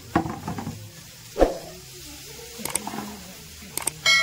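Dry straw rustling as it is gathered and handled at a feed trough, with a loud dull thump about a second and a half in and a few sharp clicks. Right at the end a bell-like ding starts ringing: a subscribe-button notification sound effect.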